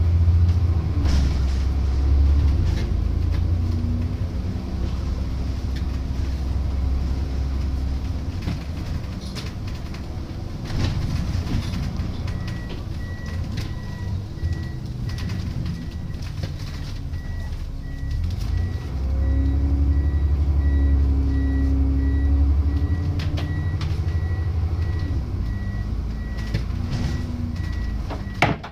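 Diesel engine of a Plaxton President double-decker bus heard from on board, its low note rising and falling as the bus drives. A high repeated beeping sets in about twelve seconds in, and a sharp clunk comes near the end.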